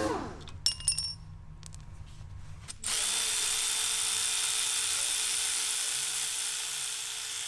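A power ratchet on a long socket extension runs steadily for about four and a half seconds, turning a bolt on a turbocharger housing, then cuts off suddenly. A few sharp metal clicks come before it.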